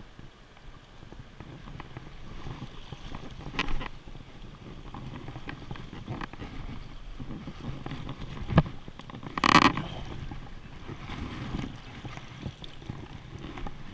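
Shallow stream water rushing and splashing around a wading angler's legs, with wind rumbling on the microphone. A few sharp knocks come through, one a little past the middle, followed by a loud, short rough burst.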